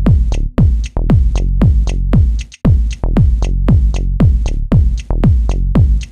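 Background electronic dance music with a steady kick drum, about two beats a second, and ticking hi-hats; the beat drops out briefly about two and a half seconds in.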